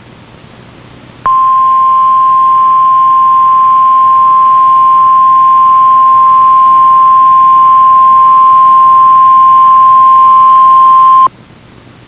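NOAA Weather Radio 1050 Hz warning alarm tone sounding for the weekly test: one loud, steady, high beep that starts about a second in, holds for about ten seconds and cuts off abruptly, over faint radio hiss.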